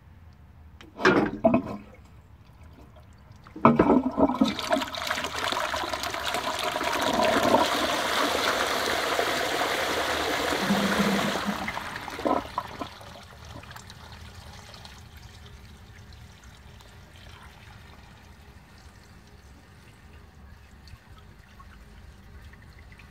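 Flush of a 1946 Royal Doulton 'Ribble' ceramic P-trap WC pan fed by a flush pipe: a couple of short knocks, then about four seconds in a loud rush of water into the bowl lasting about eight seconds, dying away to a faint trickle as the pan refills.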